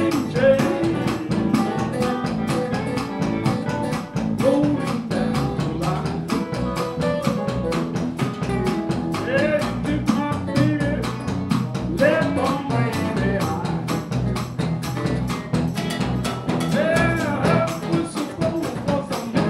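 Live blues band playing: electric guitar over electric bass and a drum kit.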